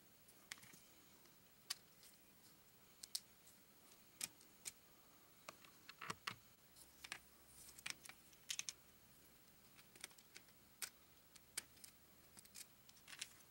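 Small, sharp plastic clicks and taps of LEGO pieces being handled and pressed together on a motorcycle model. They come irregularly, several every second or so, and bunch together in the middle.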